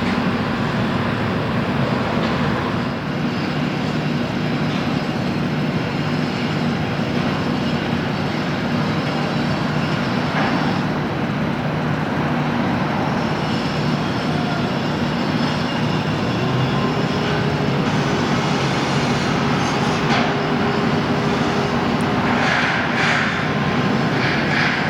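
Steady vehicle and traffic noise: a continuous hum with a low drone underneath, without pauses.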